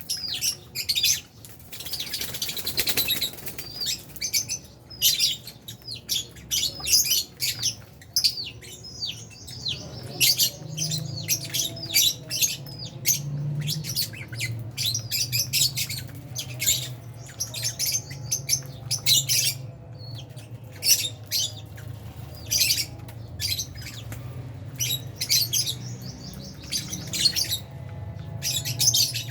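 A colony of Fisher's and albino lovebirds chirping and squawking in quick, overlapping bursts, with a brief rush of wing flapping about two seconds in. A faint low hum runs underneath from about a quarter of the way through.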